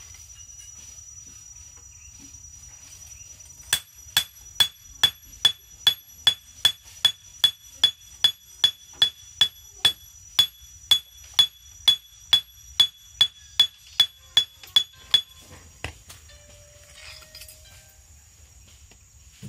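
Hand hammer forging a hot steel wangkil blade on an anvil. Steady blows, a little over two a second, each with a high metallic ring, start about four seconds in and stop about four seconds before the end, over a steady high hiss.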